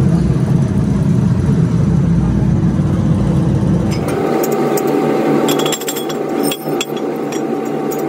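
A steady low machine rumble with a constant hum. About halfway through it gives way to a higher, quieter hum and a few light metallic clinks as cast brass water-pump impellers are handled.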